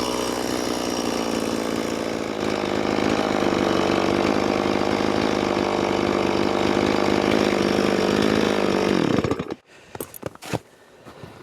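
Stihl chainsaw fitted with a debarker (bark-stripping) attachment, running steadily at high revs while stripping bark from a log. About nine seconds in it winds down and cuts off, and a few light knocks follow.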